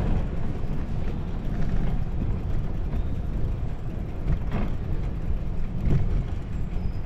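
Steady low rumble of a bicycle ride: wind on the microphone and tyres rolling over the path, with two short knocks around the middle.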